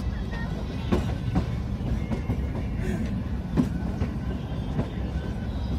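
Kalka–Shimla narrow-gauge toy train running along the track: a steady low rumble with irregular clicks and knocks from the wheels, and one louder knock a little past halfway.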